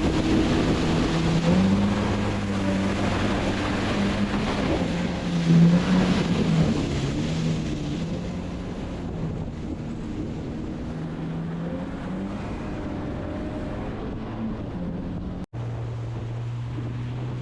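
Jet ski engine running on the water, its pitch wavering, with wind noise on the microphone and water rushing. The sound cuts out abruptly for a moment near the end and comes back as a steadier engine tone.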